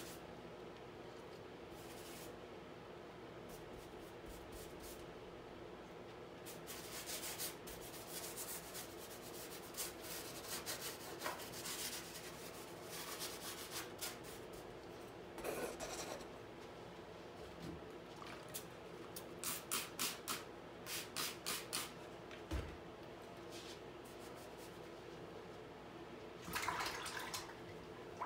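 Paintbrush strokes on a stretched canvas, short scratchy rubbing strokes that come irregularly, sometimes in quick runs of several, over a steady low hum.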